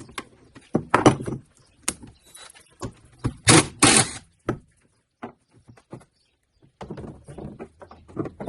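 Metal knocks and clatter of hand tools working on a pickup's tailgate handle and its 13 mm bolts. Two louder, longer rattling scrapes come a few seconds in, with scattered small clicks after them.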